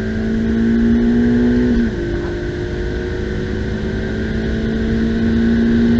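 Ferrari F8 Tributo's 3.9-litre twin-turbo V8 pulling at full throttle, its pitch climbing steadily. About two seconds in, the pitch drops sharply at an upshift, then it climbs again in the next gear.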